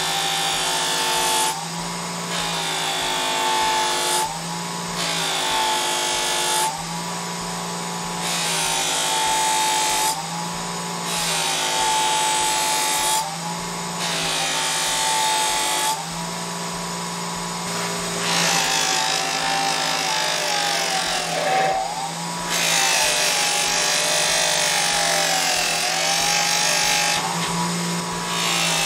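A Russel belt knife's blade held against the spinning wheel of an electric sharpener. The motor hums steadily, and a rasping grind comes in repeated passes of about two seconds each, with short gaps between them. The motor's pitch dips slightly as the blade bears on the wheel.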